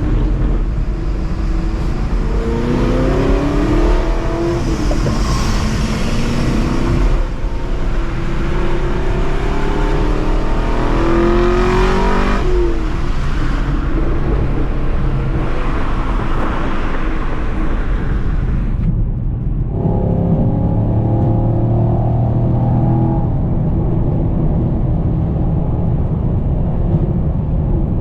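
Camaro SS 1LE's 6.2-litre LT1 V8 accelerating hard, its note rising in several pulls broken by gear changes. About two-thirds of the way in it eases off to a steadier, lower drone.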